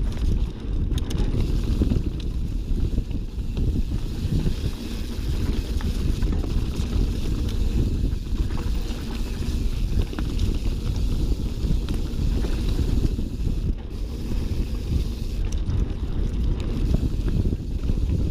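Wind buffeting the microphone during a fast mountain-bike descent, a steady low rumble. It is mixed with tyre roar from the Schwalbe Nobby Nic tyres on a dirt trail and light clicks and rattles from the 2019 Fezzari Signal Peak bike.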